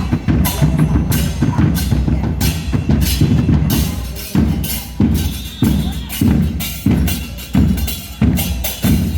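Murga percussion: bass drums struck hard in a syncopated parade rhythm, with cymbal crashes on the accents.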